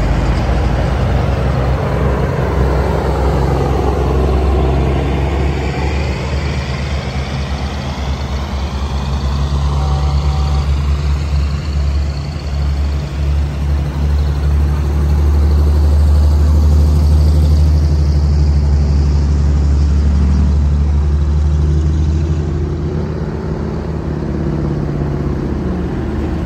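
Antique heavy trucks' engines running as the trucks drive past one after another, a steady low drone that swells about halfway through as a truck passes close.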